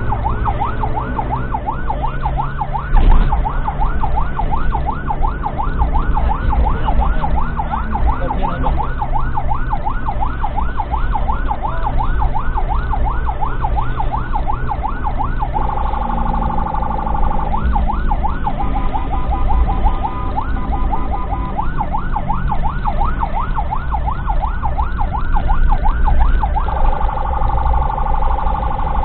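An ambulance's electronic siren, heard from inside the cab over the low rumble of the engine. It runs as a fast warbling yelp, switches to a steady held tone past the halfway point and again near the end, and has a stretch of quicker warble in between. A sharp thump comes about three seconds in.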